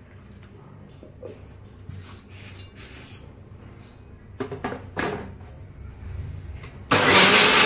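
Steel jar and lid of an electric mixer grinder clinking and knocking as the jar is set on its base. About seven seconds in, the mixer grinder starts suddenly and runs loud and steady, grinding soaked rice, chana dal and flattened rice (chuda) into a thick batter.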